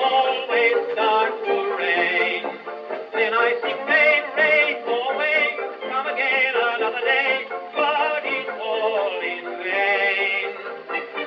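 Instrumental passage of an early-1930s 78 rpm record, with the band's melody lines wavering in vibrato. The sound is thin and narrow-range, with no bass and no top end, as old shellac recordings are.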